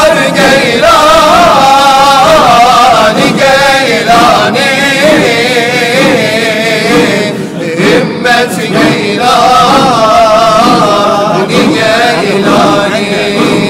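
Men's voices of a Sufi zikir circle chanting and singing: a lead voice carries a wavering, ornamented melody over the group's chant.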